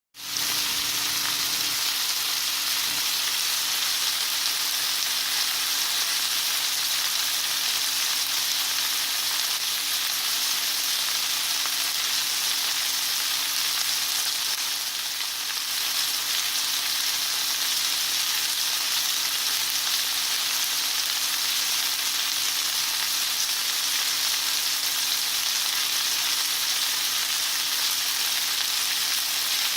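Steak sizzling as it fries: a steady, dense hiss that fades in at the start and holds on without let-up, with a faint steady hum underneath.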